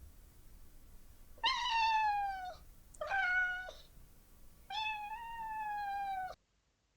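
Domestic cat meowing three times, each meow falling slightly in pitch; the last one is the longest.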